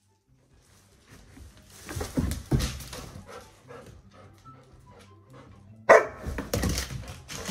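Golden retriever barking, with the crinkle of a plastic trash bag. The sharpest, loudest bark comes about six seconds in.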